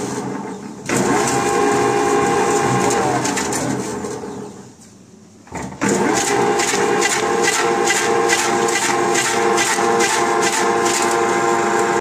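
MG-569 electric dicing machine running: a steady motor whine with a rapid rhythmic clacking of about three a second. The sound dies away about four to five seconds in and starts again abruptly about a second later.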